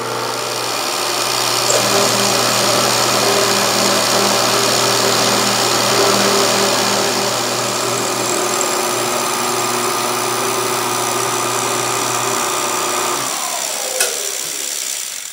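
Benchtop milling machine cutting a slot with a quarter-inch end mill: steady motor hum under the hiss and chatter of the cut. Near the end the spindle motor is switched off and winds down, falling in pitch, with a single click.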